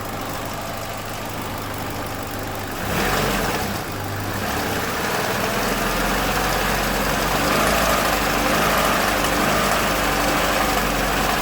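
Chevrolet Lacetti 1.8 four-cylinder engine running, revved up about three seconds in and held there, with the variable-length intake manifold flaps rattling with their control valve plugged back in: the bushings on the flap shaft are worn.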